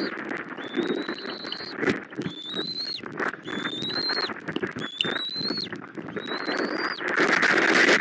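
Bald eaglet food-begging: a series of about five high, thin whistled calls, each under a second long and rising slightly in pitch. Steady rain hiss runs underneath and grows louder near the end.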